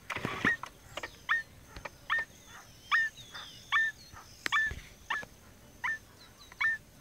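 Paint-billed crake calling: a steady series of short, sharp notes, each sweeping quickly upward, repeated about every three quarters of a second, with a brief rustle near the start.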